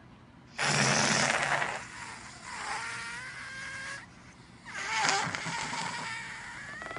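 Air let out of an inflated latex balloon through its stretched neck: a rush of air about half a second in, then a squealing whine that wavers in pitch. A second rush comes about five seconds in, again turning into a wavering squeal as the balloon deflates.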